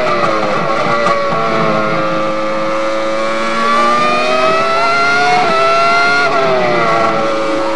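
Ferrari engine running loud and revving: its pitch drops at the start, holds low, climbs slowly through the middle, then falls away again about two-thirds through.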